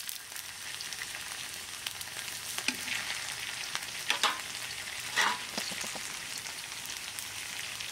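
Sliced onions and green chilli paste sizzling in hot oil in a black wok, with a spatula stirring and scraping against the pan a few times.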